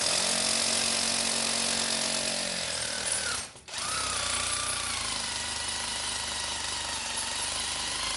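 Power drill fitted with an 18-inch bit drilling a hole for termite-proofing chemical, running steadily under load, stopping briefly about three and a half seconds in and then drilling on.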